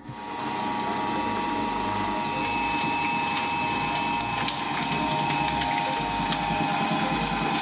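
Twin-shaft shredder running with a steady whine from its motor and gears over a low rumble, with scattered sharp clicks and crackles from about two and a half seconds in as the stretchy rubber toy goes into its steel blades.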